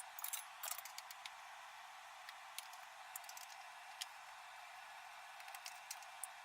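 Faint steady hiss with scattered small clicks and taps: several in the first second or so, then single ones spread through, and a few more near the end.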